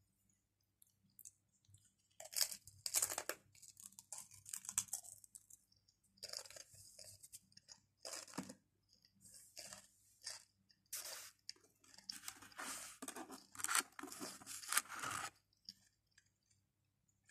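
Pringles potato crisps crunching as they are bitten and chewed close to the microphone. The crunching starts about two seconds in and comes in bursts separated by short pauses.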